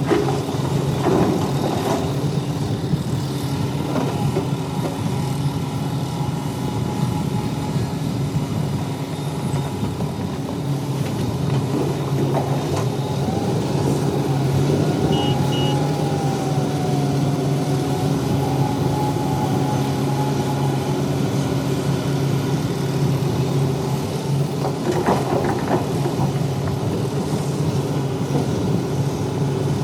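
Heavy diesel construction machinery running steadily, with a few clanks and a wavering whine partway through.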